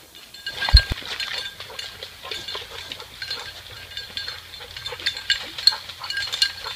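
Labrador retriever searching through dry leaf litter and brush: repeated crackling and rustling, with one heavy thump about a second in.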